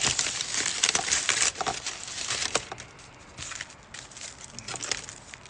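Food wrapping crinkling and rustling as a sandwich is handled and unwrapped. It is loudest through the first second and a half, then goes on as scattered lighter rustles and clicks.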